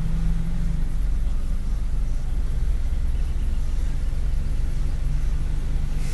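Steady low engine and road rumble of a car moving slowly, heard inside its cabin.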